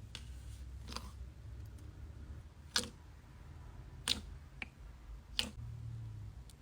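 Slime being handled, giving a handful of short, sharp clicks and pops spread a second or so apart over a low steady hum.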